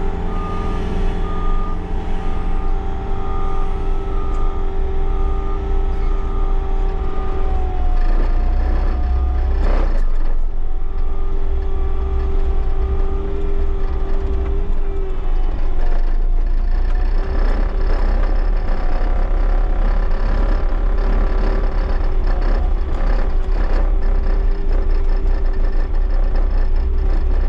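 Bobcat T76 compact track loader's diesel engine running with a heavy low rumble and a steady whine that dips in pitch twice, while its backup alarm beeps for the first several seconds.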